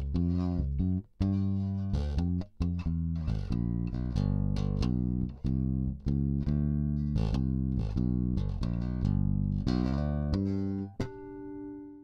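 Wreck Praetorian V five-string fanned-fret electric bass played on its neck pickup alone, a Dolezal SOB5 ceramic, recorded direct with no EQ in passive mode. A run of plucked notes with brief pauses, ending on a note left to ring and fade near the end.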